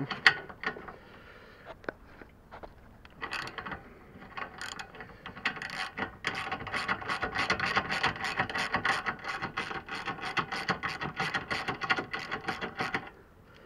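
Socket ratchet wrench clicking while loosening a 13 mm bolt: a few scattered clicks at first, then steady rapid clicking, about five a second, from about six seconds in until shortly before the end.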